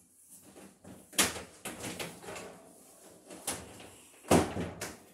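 Irregular knocks and clunks from renovation work, like boards or tools being handled against a stud wall. There are about five of them, and the loudest comes about four seconds in.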